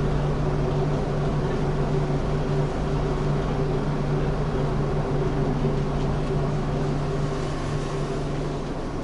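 Electric express commuter train running, heard inside the carriage: a steady rumble with a low steady hum from the drive, which stops shortly before the end as the noise eases a little.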